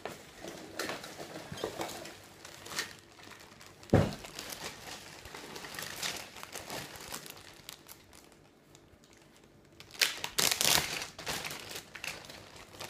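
Packaging crinkling and rustling in irregular bursts as it is handled, with one sharp thump about four seconds in and a louder spell of crinkling near the end.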